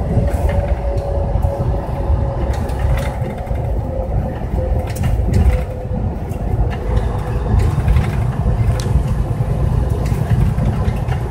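Steady low engine and road rumble inside a truck's cab at highway speed, with a faint whine that sinks slightly and fades past the middle.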